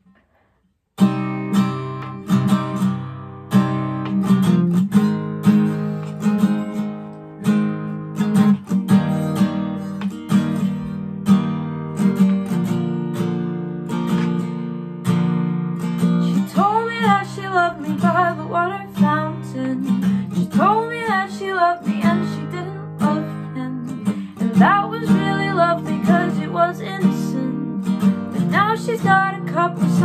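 Acoustic guitar with a capo strummed in steady chords, starting about a second in. A voice starts singing over it about halfway through.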